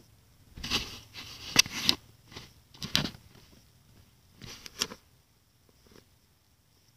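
Rustling and knocking handling noises, a handful of short irregular bursts over the first five seconds, then it goes quiet.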